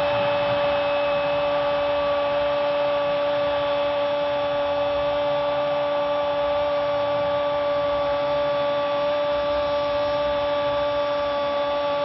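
A male football commentator's long goal cry, "Gooool", held on one steady pitch without a break, over stadium crowd noise.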